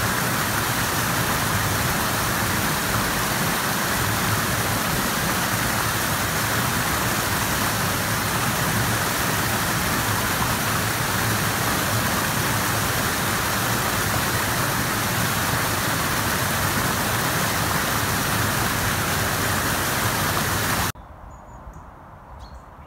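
Fast-flowing river water rushing, a steady even wash. It cuts off suddenly about a second before the end, leaving quiet open-air background with a few faint bird calls.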